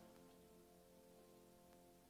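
A grand piano's last held chord ringing on and fading away faintly, its notes dying out near the end.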